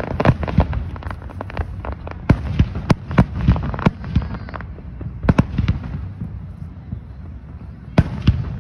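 Aerial fireworks shells bursting overhead: a rapid string of sharp bangs and crackles for the first few seconds, thinning out about five seconds in, then a fresh volley near the end.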